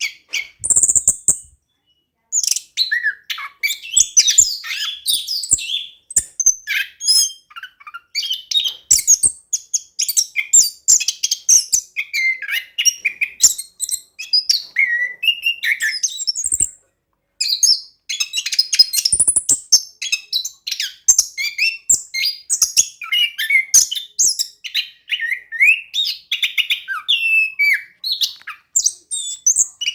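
Orange-headed thrush singing in full, continuous song: a fast, varied run of high chirps and whistles, with brief pauses about two seconds in and a little past halfway.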